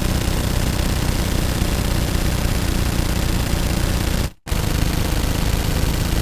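Automatic gun firing in a sustained rapid burst. It breaks off for a split second a little over four seconds in, then fires on.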